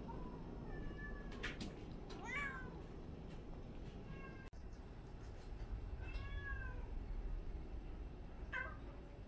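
A 16-year-old calico cat meowing about five times, short arching meows spaced a second or two apart.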